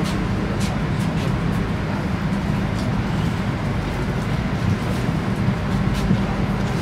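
Electric SKM commuter train giving a steady low rumble and hum, with a few footsteps of passengers walking past close by.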